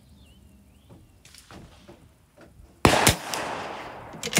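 One sharp shot from a Bergara B14R .22 LR bolt-action rifle nearly three seconds in, with a ringing tail that dies away over about a second. A few short clicks follow near the end.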